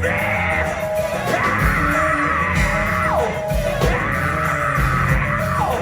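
Live gospel choir and band music: held sung notes over bass and drums, with two notes sliding down in pitch, one about three seconds in and one near the end.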